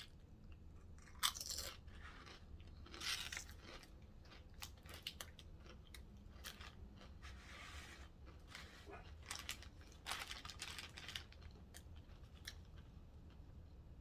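Close-up eating sounds: a person biting and chewing a Subway meal, with a string of short crisp bites and chews, the loudest about a second in, around three seconds in and around ten seconds in.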